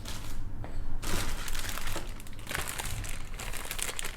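Plastic bag crinkling as bagged plastic model-kit parts are handled, picking up about a second in with small crackles and clicks.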